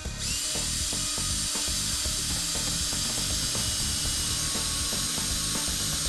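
Makita LXT cordless drill spinning a step drill bit through a plastic trim panel. The motor starts just after the opening and then runs at a steady high whine.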